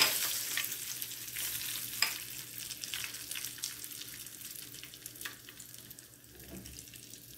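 Curry leaves and a dried red chilli sizzling in hot oil with spluttered mustard seeds in a nonstick frying pan, the tempering for sambar. A few sharp pops sound, the loudest at the very start and another about two seconds in, and the sizzle dies down steadily.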